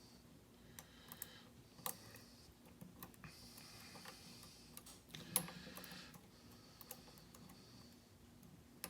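Faint, irregular clicks and light scraping of a lock pick working the pins of a Euro-profile pin-tumbler cylinder under tension, with a sharper click about two seconds in and another about halfway.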